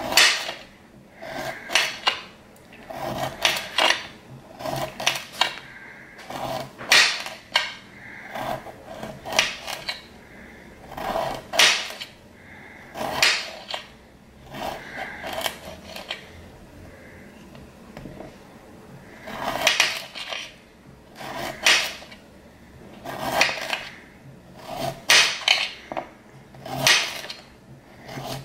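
Kitchen knife slicing a cucumber into rounds on a cutting board: sharp knocks of the blade striking the board in short runs, with a pause of several seconds about halfway.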